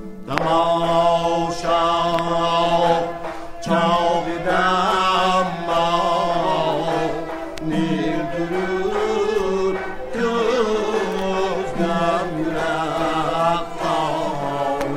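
Uzbek–Tajik Shashmaqom classical music: a heavily ornamented sung melody over a steady low accompaniment, its phrases breaking off briefly twice.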